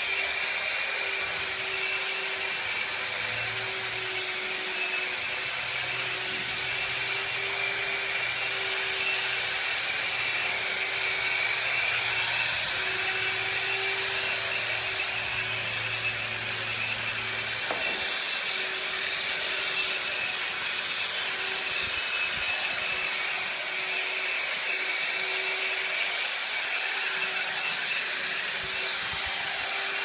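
Long-reach electric drywall sander running steadily with a constant motor whine as its spinning round pad is worked over a plastered wall.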